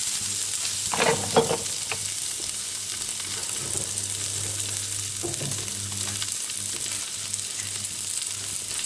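Diced guanciale sizzling steadily in a very hot, dry nonstick frying pan with no oil added.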